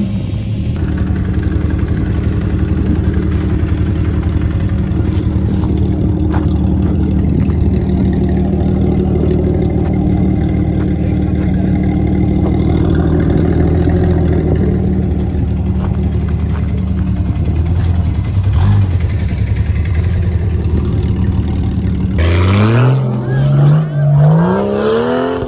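An off-road SUV's engine runs at a steady pitch under load, then revs up twice in rising sweeps near the end as the SUV climbs a steep dirt slope.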